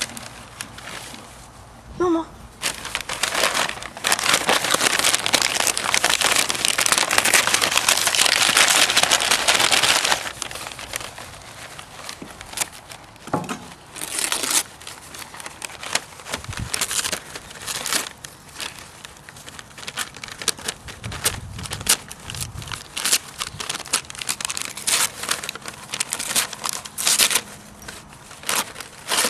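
Wrapping paper crinkling and tearing as a birthday present is unwrapped: a dense, steady crackle for several seconds, then scattered short rustles and crinkles.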